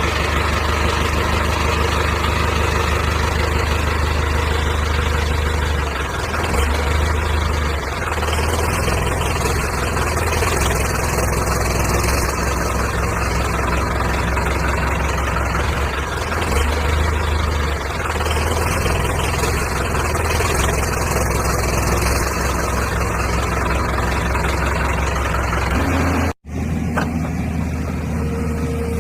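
Heavy diesel engine of the machinery loading sand running steadily with a deep hum, swelling a little now and then. It drops out for an instant near the end.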